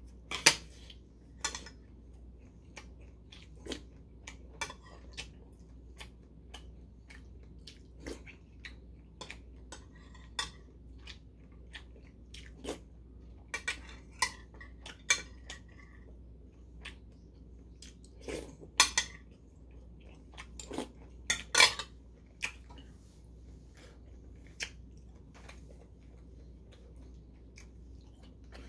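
Metal spoon and chopsticks clinking and scraping against a porcelain soup bowl, with chewing in between. The clinks come irregularly, the sharpest just after the start and twice about two-thirds of the way through.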